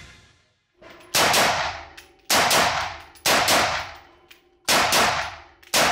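Smith & Wesson M&P15T semi-automatic 5.56 NATO carbine firing about five shots roughly a second apart in an indoor range, each crack ringing briefly off the walls.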